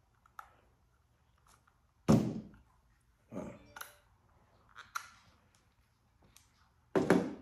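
Handling knocks and clicks from an AEA HP Max .45 calibre air rifle as its magazine is taken out: a few light clicks, with two louder clunks about two seconds in and near the end.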